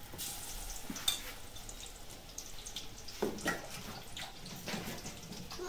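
Pakoras deep-frying in hot oil: a steady sizzle with scattered crackles.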